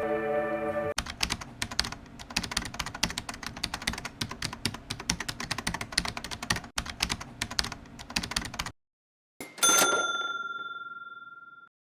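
A held music chord stops about a second in, giving way to rapid keyboard typing clicks that last about eight seconds. After a short gap, a single bell ding rings out and fades over about two seconds.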